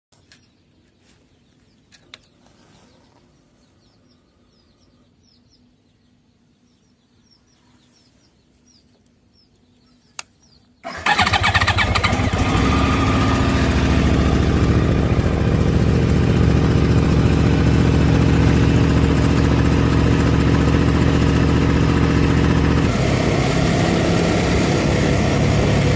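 Quiet with a few sharp clicks, then about eleven seconds in a motorcycle engine starts and settles into a steady idle, its tone shifting slightly a couple of seconds before the end.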